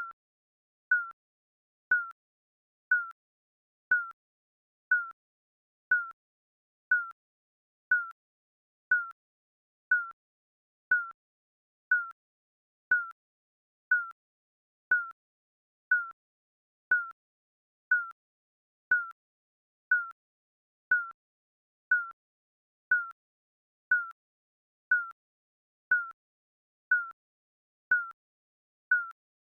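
Digital countdown timer beeping: one short, high electronic beep every second, evenly spaced.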